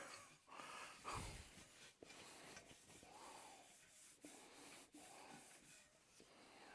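Faint rubbing of a cloth wiping a primed motorcycle mudguard down with wax and grease remover, in irregular strokes with a few soft taps.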